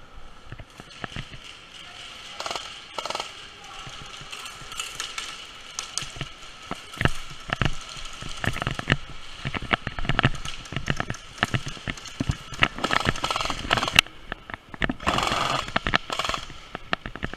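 Airsoft gunfire: many irregular sharp pops and cracks of shots, in scattered single shots and short bursts. They grow denser in the second half, with a thick cluster near the end.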